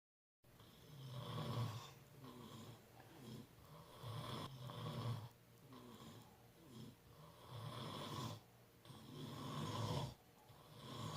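Faint snoring, one snore every two to three seconds, with quieter breaths between.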